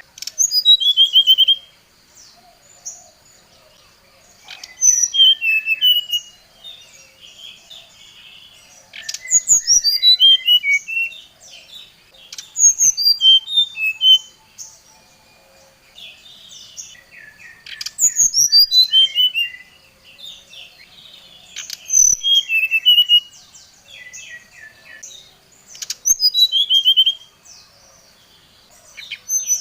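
Brown-chested jungle flycatcher singing: a loud phrase of quick whistled notes cascading downward in pitch, repeated about every four to five seconds.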